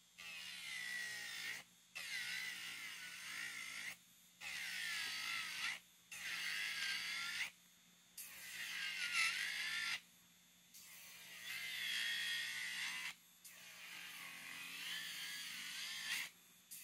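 Melody Susie SR3-Jade rechargeable nail drill grinding an artificial nail in repeated passes of one to two seconds with short pauses between. Its high whine wavers in pitch as the bit bears on the nail, thinning the nail down for a soak-off.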